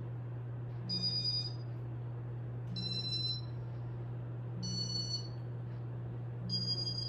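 Four short electronic beeps, evenly spaced about two seconds apart, over a steady low hum.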